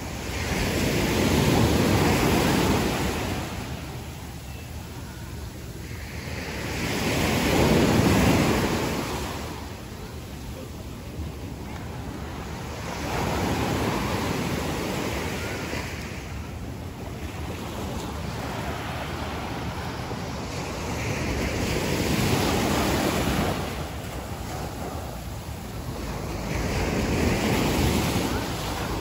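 Small ocean waves breaking and washing up a sand beach, the surf swelling and fading five times, roughly every six seconds.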